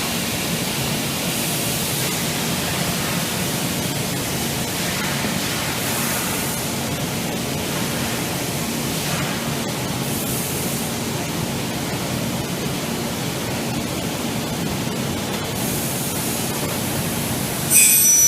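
Aluminium-profile cutting saw machine running with a steady hum and noise, with short patches of higher hiss every few seconds. Near the end the saw blade starts cutting the aluminium profile with a sudden loud, high-pitched screech.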